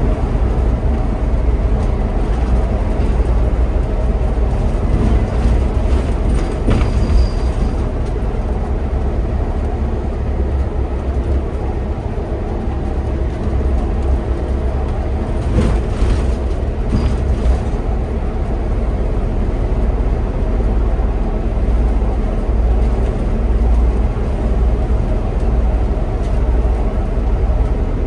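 Scania Citywide city bus cruising at highway speed, heard from the driver's cab: a steady deep drone of engine and tyres on the road, with a few brief clicks.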